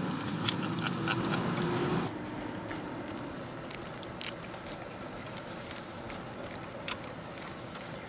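A dog licking soft-serve ice cream from a small cup: scattered wet smacks and clicks over the steady hum of an idling car, which drops in level about two seconds in.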